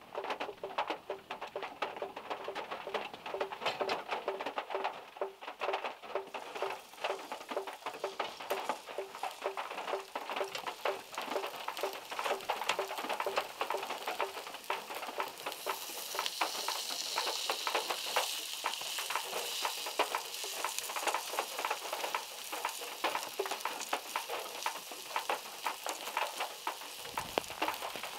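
Rain drops pattering densely on a small car's body, a crackling, sizzle-like patter of many small hits that grows heavier and hissier about halfway through.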